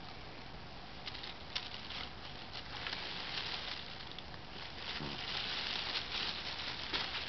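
Thin plastic bag crinkling and rustling in uneven surges as a kitten rolls and pushes against it, with a few sharp crackles.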